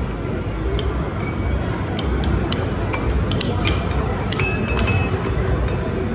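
Air hockey puck clacking irregularly against mallets and the table rails, over a steady background din of voices and music.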